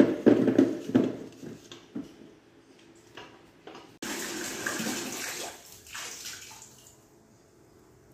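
Boiled sweet potatoes and lesser yams tipped from a metal pot into a bowl, tumbling and splashing with the leftover cooking water in the first second or so. A rushing noise starts suddenly about four seconds in and fades over the next couple of seconds.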